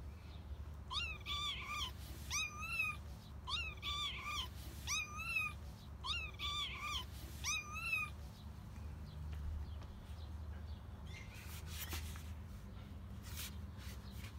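Kitten meowing about six times in quick succession, short high-pitched cries that rise and fall, while its mother cat holds and mouths it by the head and neck; the calls are the kitten's protest. A few soft scuffling noises follow near the end as the cats move.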